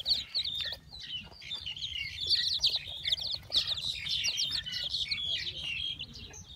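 A brood of baby chicks peeping continuously: many short, high chirps overlapping in a dense, unbroken chatter.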